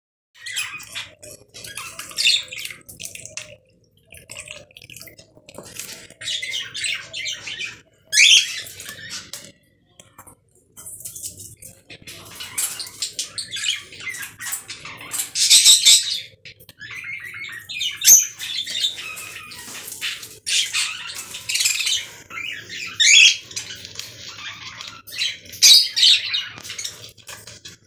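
Budgerigar chattering and squawking in bursts, with a few sharp chirps, while splashing in a bowl of water.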